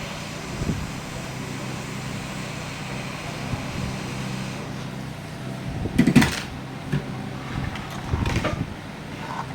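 Steady fan hum with an airy hiss that stops about halfway through, then two brief bouts of clattering handling noise on the workbench, the first the louder.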